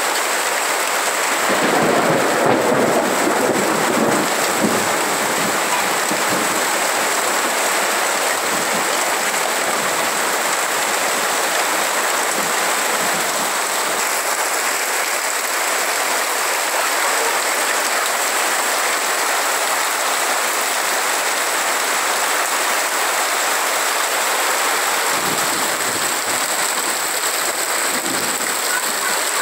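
Heavy rain falling steadily on wet concrete and puddles, a continuous hiss. A low rumble swells briefly about two seconds in.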